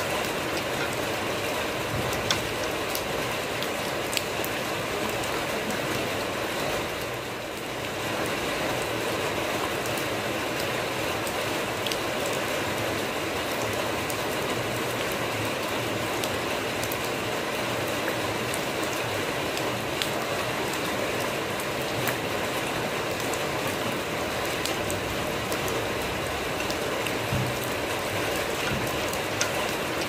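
Steady rain falling on muddy ground and into a shallow puddle, with single drops splashing now and then above the even patter. The rain eases briefly about seven seconds in.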